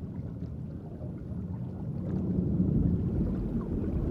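Low, muffled underwater ambience: a steady rumble of moving water, growing a little louder about halfway through.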